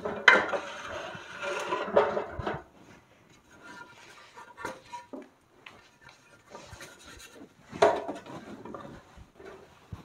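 Metal plastering tool scraping across fresh gypsum plaster on a window reveal, levelling it: a long scrape in the first two and a half seconds, then quieter scrapes and taps, and another short scrape near the end.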